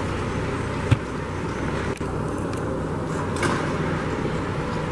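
John Deere utility tractor's diesel engine running steadily at low speed as it pulls a small utility trailer, with a single sharp knock about a second in.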